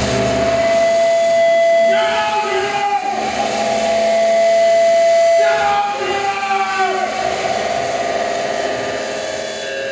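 Acoustic feedback between microphones and PA speakers: several steady whistling tones over a hiss. New tones come in about two seconds in and again near six seconds, with a downward slide around seven seconds.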